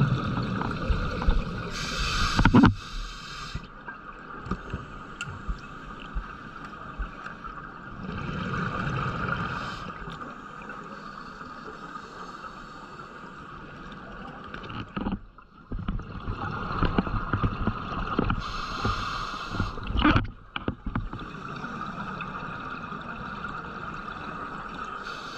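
Underwater sound picked up by a diver's camera: a steady hum with gurgling, bubbling stretches every several seconds, from scuba divers exhaling through their regulators.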